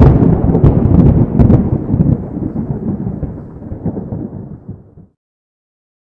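Intro sound effect: a deep rolling rumble with a few sharp crackles in its first second and a half, dying away and stopping about five seconds in.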